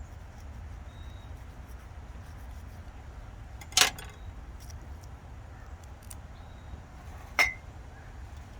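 Two sharp clinks of kitchenware being handled, about three and a half seconds apart, the second with a brief ring, over a steady low hum.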